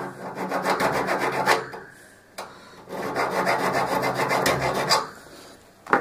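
Needle file rasping back and forth across a thin copper refrigerator capillary tube to score it for cutting. It comes in two bouts of quick strokes with a short pause between, and a short sharp click near the end. The tube is being cut off because it is fully clogged.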